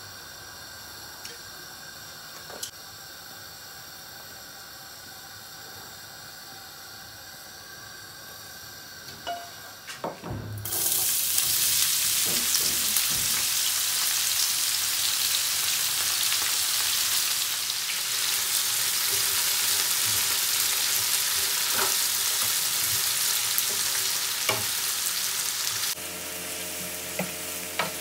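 Fish frying in hot oil. After a few knocks, a loud steady sizzle starts abruptly about a third of the way in, then drops sharply near the end.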